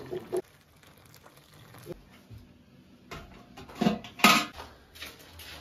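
Dishes and pots clattering: a few sharp clinks and knocks, loudest in a quick cluster about four seconds in.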